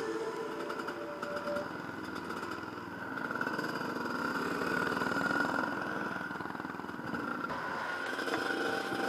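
Dirt bike engine running, heard from the rider's helmet-mounted camera, as the bike pulls away and rides along a dirt trail.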